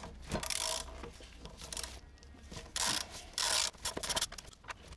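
Ratchet wrench clicking in several short runs as an 8 mm Allen socket undoes the mounting bolts of a motorcycle's front brake caliper.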